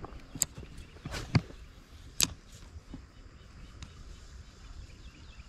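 A few sharp knocks and clicks, the loudest about a second and a half in, over a low rumble; faint rapid chirps start near the end.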